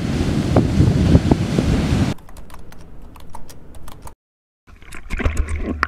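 Heavy ocean surf breaking, with wind buffeting the microphone, drops away after about two seconds to a quieter stretch of scattered sharp clicks. A brief cut to total silence about four seconds in, then water sloshing and splashing close around a camera at the sea surface.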